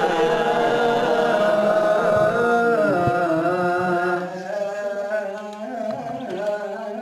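Ethiopian Orthodox liturgical chant: voices chanting together in long, held notes that slide slowly between pitches. The chant grows quieter about four seconds in.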